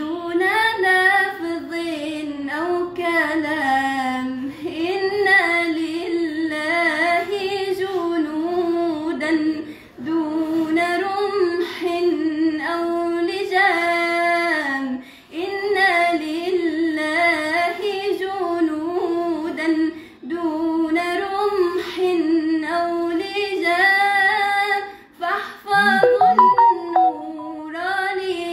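A teenage girl singing an Islamic ibtihal, a religious supplication praising the Prophet Muhammad, as a solo voice in long ornamented phrases with short breaks for breath between them.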